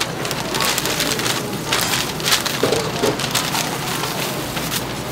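Newspaper rustling and crinkling as a sheet is shaken open and folded around a portion of sundae, in a quick run of irregular crackles over a steady hiss.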